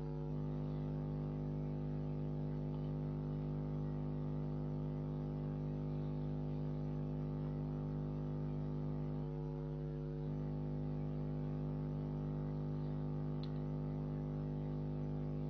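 Steady background hum made of several low pitched tones, with no other event. The mix of tones shifts briefly twice, once at the very start and again about nine seconds in.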